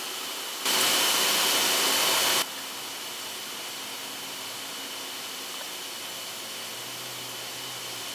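A steady hiss, with a louder hissing blast that switches on abruptly under a second in and cuts off just as abruptly less than two seconds later.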